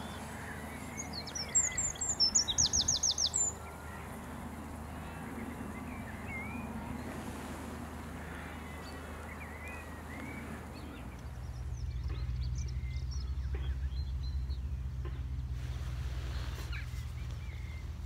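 Eurasian wren singing: a loud burst of high, quick notes ending in a fast rattling trill, about one to three and a half seconds in. Other birds chirp faintly afterwards, and a low rumble comes in about eleven seconds in.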